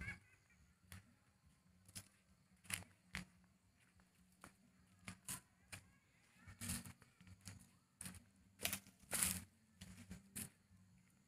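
Faint footsteps crunching and rustling on dry ground, a dozen or so irregular steps and scuffs.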